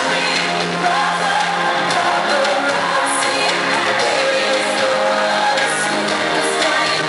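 Live pop concert music with a singer's voice, heard through the arena's sound system, with audience shouts mixed in.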